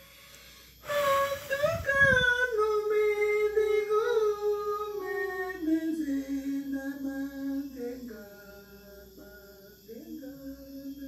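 A woman's voice singing wordless, long, wavering notes that glide and step downward in pitch, then rise again near the end, with a breathy rush of noise about a second in.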